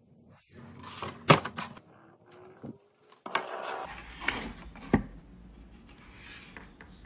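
Cardboard pizza box handled on a table: a few sharp knocks and rustles, the loudest about a second in.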